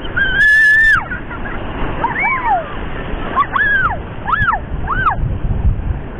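A young child's high squeals as seawater washes over the rocks around her: one long, loud squeal about half a second in, then four shorter squeals that rise and fall. Surf washes steadily over the reef underneath.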